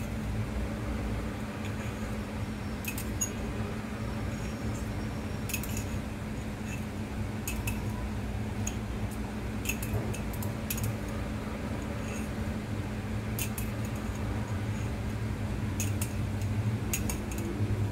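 A metal spoon clinking against a drinking glass of calamansi juice as the seeds are scooped out: light clinks at irregular intervals over a steady low hum.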